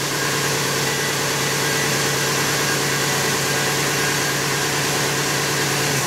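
Ford F-150 truck engine idling steadily.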